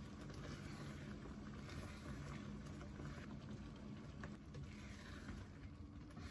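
Thick glutinous-rice, palm-sugar and coconut-milk mixture bubbling in a non-stick pan as a plastic spatula stirs and scrapes through it, over a steady low hum.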